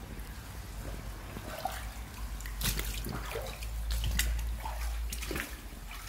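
Shallow stream water trickling and dripping, with scattered sharp drips and a few small plops.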